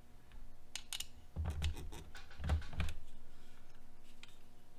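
Hard plastic RC truck parts (the front skid plate and bulkhead assembly) clicking and knocking as they are handled and pressed together. Scattered light clicks, with a few duller knocks a second or two in.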